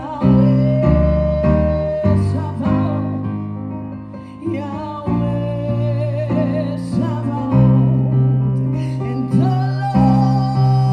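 Worship song: sustained keyboard chords over steady bass notes, with a voice singing a slow melody above them.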